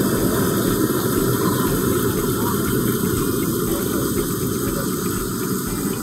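Steady rushing of a mountain creek, an even noise that fades slightly towards the end.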